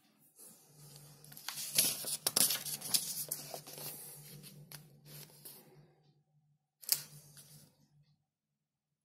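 Paper pages of a stapled instruction booklet being turned by hand: a crisp rustling that is loudest about two seconds in, then a single sharp page flap near the end.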